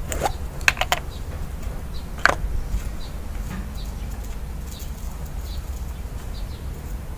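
A few light clicks and taps of small parts and containers being handled on a metal workbench, four in quick succession and one more about two seconds in, over a steady low rumble.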